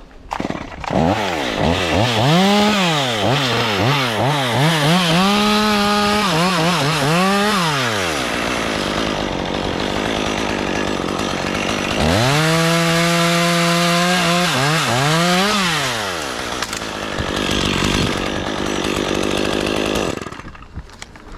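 Two-stroke chainsaw revving up and down again and again, with two longer stretches where the engine note is lost under the noise of the chain cutting wood. It stops about a second before the end.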